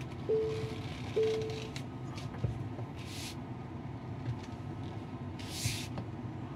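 Tesla parking-sensor warning chime beeping twice, a short steady mid-pitched tone a little under a second apart, then stopping: the sign of an obstacle about half a metre behind while reversing. A low cabin hum runs underneath, with two brief hisses later on.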